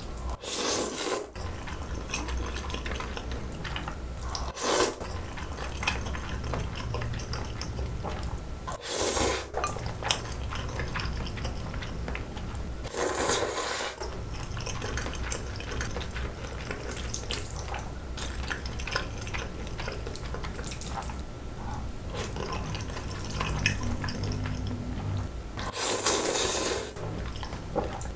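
Close-miked eating of sauce-coated bibim noodles: several loud slurps a few seconds apart, with wet chewing between them.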